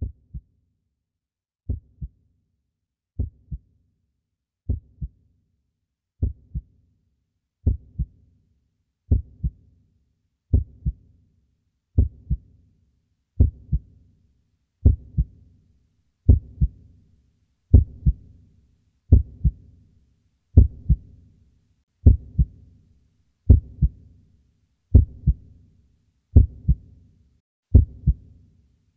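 Slow heartbeat sound effect: pairs of low thumps (lub-dub), about one pair every second and a half. The beats grow a little louder over the first ten seconds, and a faint ringing tail follows each pair.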